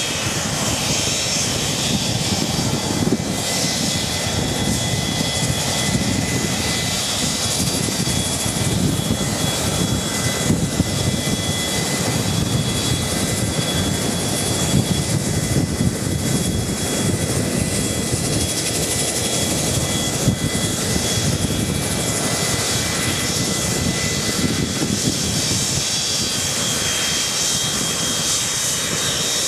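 Boeing 737-200's Pratt & Whitney JT8D turbofan engines running at low taxi power at close range: a loud, steady rumble with a steady high-pitched whine over it.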